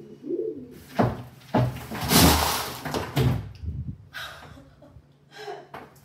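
Hundreds of plastic Rubik's Cubes dumped out of a large wooden-framed mosaic board onto a comforter-covered bed: a knock about a second in, then a rush of cubes tumbling and rattling together for about two seconds before it dies away.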